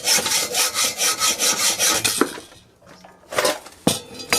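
Hacksaw cutting through thick steel plate in quick, even strokes, about four a second, stopping about two seconds in. A few sharp knocks follow near the end.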